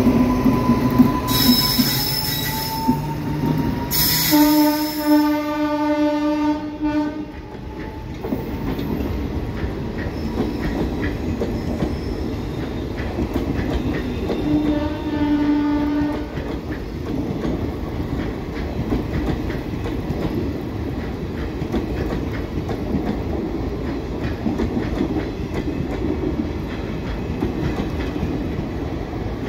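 Passenger coaches of an electric-hauled express train rolling past, the wheels clattering and rumbling steadily over the rails. There are two brief high screeches in the first few seconds. A train horn sounds for about two and a half seconds around five seconds in, and again briefly around fifteen seconds in.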